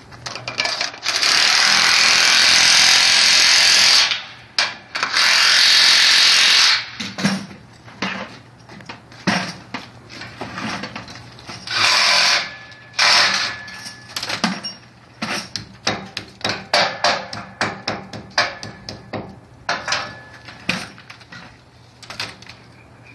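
Cordless hammer drill boring into a concrete balcony deck, drilling anchor holes at a railing post's base plate: two long runs of a few seconds each, then briefer runs, then a long series of short stuttering bursts and knocks.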